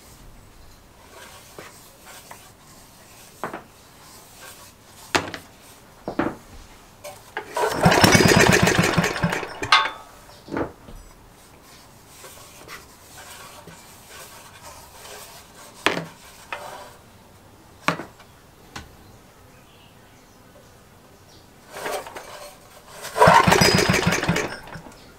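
1941 Briggs & Stratton Charger single-cylinder engine being rope-started: about eight seconds in and again near the end it fires and runs in a rapid even beat for roughly two seconds, then dies. Between attempts come scattered clicks and knocks from the starter rope and handling.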